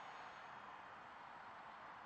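Faint, steady hiss with the thin, distant whine of a small RC jet's electric micro outrunner motor and pusher propeller, high overhead. The whine fades about half a second in.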